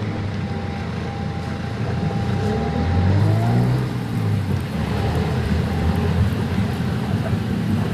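Road vehicle running: a steady low engine rumble that swells and rises in pitch briefly about three seconds in.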